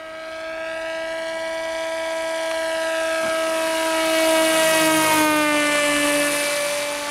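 HobbyKing SuperG radio-controlled autogyro making a low pass: a steady, high, whining motor-and-propeller drone grows louder as it approaches, peaks about four and a half seconds in, then drops slightly in pitch as it goes by.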